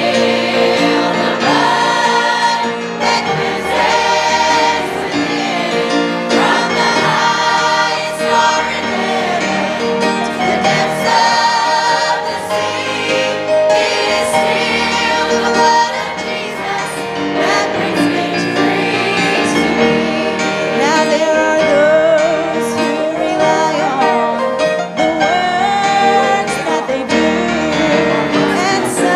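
Church choir singing a gospel song, with a woman singing lead into a microphone in front of the choir.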